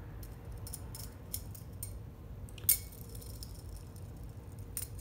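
Scattered small metallic clicks and clinks from the wire, beads and propeller blade of a musky lure being handled while its wire line tie is twisted, with one sharper click a little before the middle.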